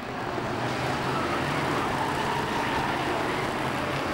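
Several stock car racing engines running at speed together, a steady blend of engine noise as the pack races through a corner, with one car passing close by.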